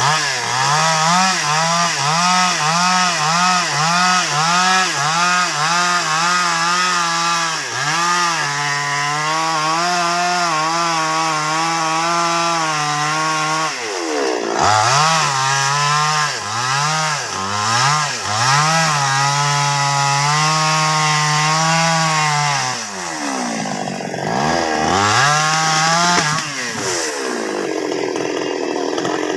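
Two-stroke chainsaw cutting baros wood, its engine speed wavering and surging as the chain bites. It revs in quick pulses at first, then runs at steadier high speed, and drops back toward idle several times before picking up again.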